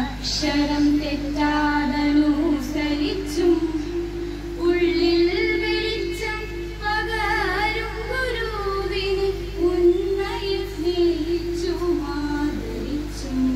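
A young female voice singing a melody with held notes that waver, over a steady sustained musical accompaniment.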